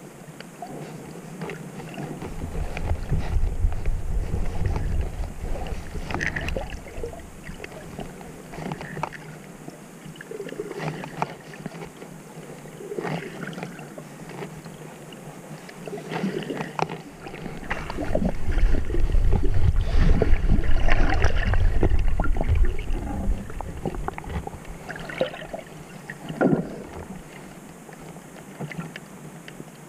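Underwater sound picked up by a diver's camera: water rushing past in two long, low surges, one a few seconds in and a stronger one past the middle, with scattered crackles and clicks throughout.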